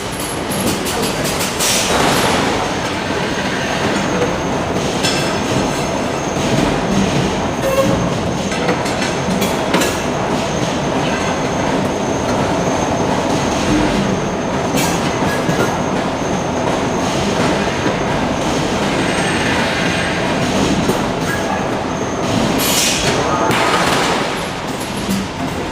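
Forge shop machinery noise: a steady loud mechanical clatter with a faint high metallic squeal and scattered metal knocks.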